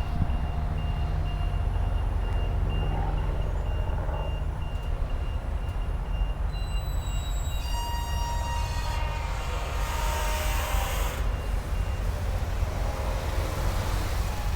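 Motorized security gate's warning beeper sounding as the gate opens, a steady high beep about twice a second that stops about three quarters of the way through, over a steady low engine hum. A rushing noise swells and fades in the middle.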